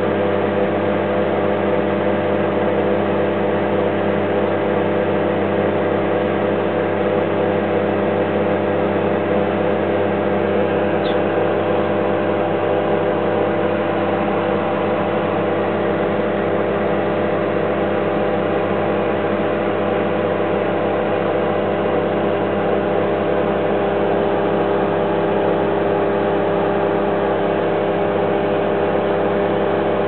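Microwave oven running: a steady electrical hum made of several constant tones, unchanging.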